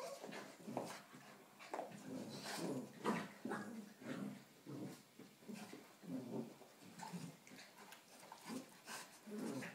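A Rottweiler-cross puppy and a St Bernard play-fighting, with a quick run of short dog vocalisations, several a second, some of them whiny.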